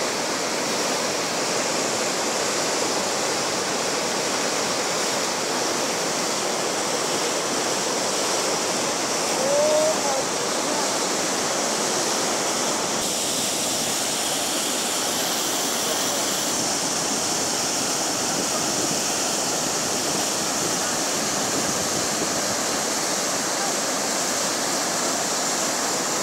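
Muddy floodwater rushing fast through a wadi channel in spate: a steady, unbroken rush of water.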